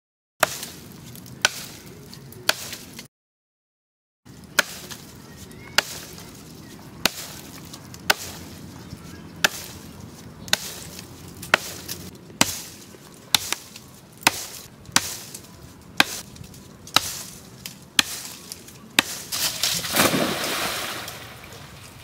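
Heavy axe, forged from a tractor plough disc, chopping into the dry trunk of a dead mango tree with sharp strikes about one a second. A little before the end the cut trunk falls into the pond with a longer crash and splash.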